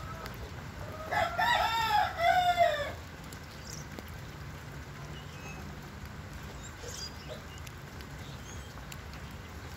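A rooster crowing once, about a second in, a two-part call lasting about two seconds, over faint steady low background noise.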